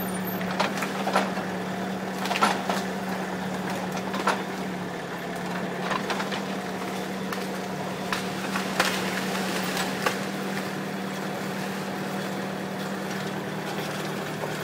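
Kubota M8200 tractor's diesel engine running steadily as it powers the winch pulling the hung-up tree down. Several sharp cracks and knocks come over the engine in the first ten seconds.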